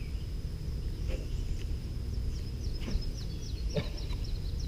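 Outdoor ambience with a steady low rumble, over which a bird sings a rapid series of short downward-slurred notes in the second half. A steady high tone runs throughout, and there are a few light knocks.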